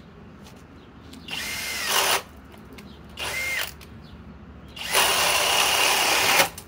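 Master Force Boost cordless hammer drill on speed 2, boring a 1-1/2-inch Speed Demon bit into a thick wooden beam in three bursts: two short ones, then a longer, louder run near the end, each starting with a rising whine as the motor spins up.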